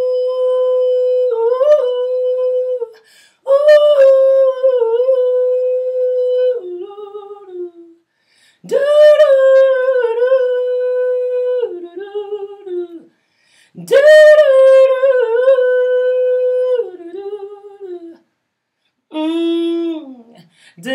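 A woman's unaccompanied wordless vocalizing, hummed and sung on held notes, in several long phrases with short breaths between, in a small room.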